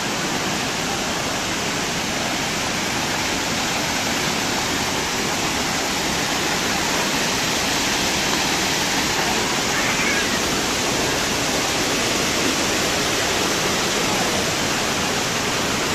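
Water pouring over a dam's overflow wall and cascading down the rocks below: a steady, even rush of falling water.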